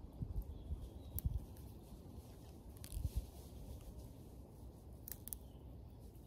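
Faint rustling and small snaps of snowdrop leaves and stems as a clump is pulled apart by hand, with a few sharp clicks and soft low thumps.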